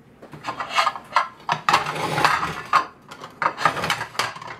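Ceramic plates clinking and scraping against each other as a stack is handled, a quick run of sharp clinks with a longer scrape about two seconds in.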